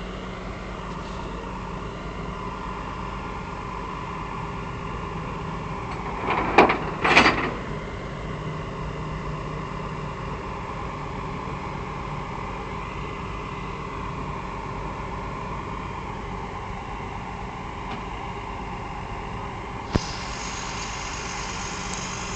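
A vehicle engine idling steadily. A brief louder pitched sound comes twice about six to seven seconds in, and a single sharp click is heard near the end.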